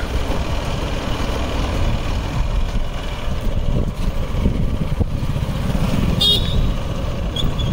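Motorcycles running along a road, a steady low rumble, with a brief high chirp about six seconds in.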